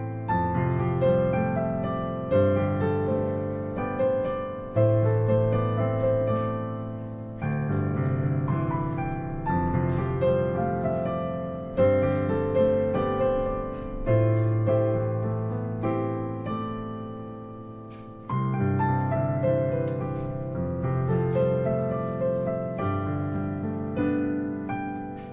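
Digital piano played with both hands: a chord is struck about every two to two and a half seconds over a held low bass note, and each dies away before the next.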